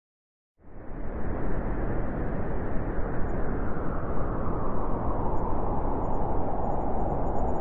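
Strong wind blowing: a loud rushing with a deep rumble, growing brighter toward the end, then cutting off suddenly.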